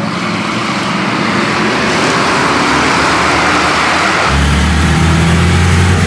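Ford Crown Victoria Police Interceptor race cars' V8 engines running hard on an oval track. A rushing engine and road noise builds, then about four seconds in a steady low engine drone cuts in.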